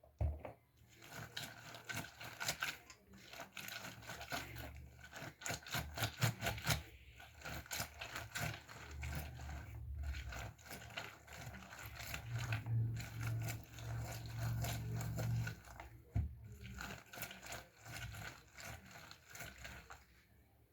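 Lemons being squeezed for juice: irregular wet squishing, scraping and crackling of the fruit and peel. A low hum joins in for a few seconds in the middle.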